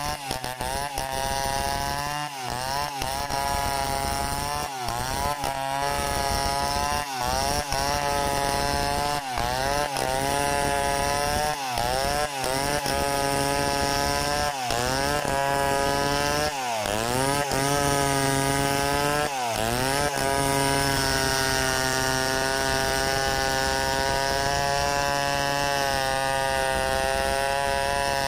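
Stihl 070 two-stroke chainsaw ripping a log lengthwise into boards at high revs. Its engine pitch repeatedly sags and recovers as the chain bites into the wood, then holds steady for the last third.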